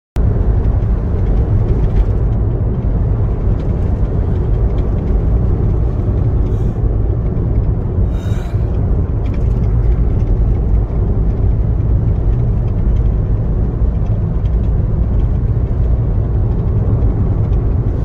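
Steady low rumble of a car driving on a tarred road, heard from inside the cabin, with a brief hiss about eight seconds in.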